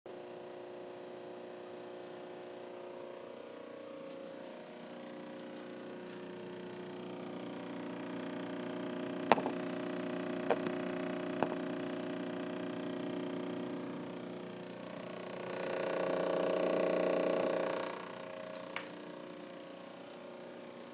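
A Samsung RF261 French door refrigerator giving off a loud, continuous humming vibration made of several steady tones. It grows louder about halfway through and swells loudest for a few seconds near the end before easing back, with a few sharp clicks in the middle. The owner takes the noise for a defect in the brand-new fridge.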